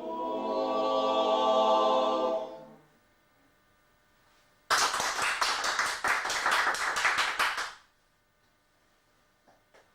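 An a cappella vocal group holds its final chord, which fades out about three seconds in. After a short pause, an audience applauds for about three seconds.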